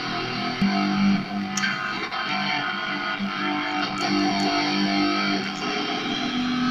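Cort CR200 Les Paul-style electric guitar playing a lead line of held notes with a heavily distorted tone, heard through a small, cheap speaker.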